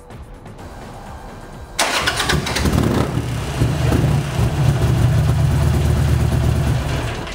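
Motorcycle engine started on its lithium-ion battery: the electric starter fires it about two seconds in, and it then runs steadily before dying away near the end. This is one of a run of repeated starts made to drain the battery.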